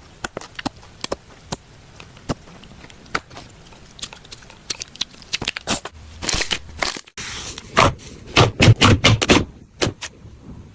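Slime being handled, giving sticky crackles and small pops: scattered at first, then denser and louder after a break about seven seconds in.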